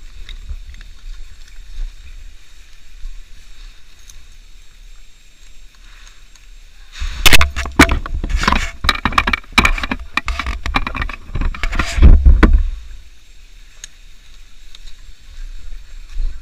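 A dense run of loud knocks and rustles for about six seconds, starting about seven seconds in, over a low steady rumble.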